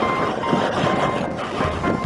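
BMW R1200GS Adventure on the move at road speed: wind noise over the helmet-mounted microphone with the flat-twin engine running underneath, and a steady high tone that comes and goes in short stretches.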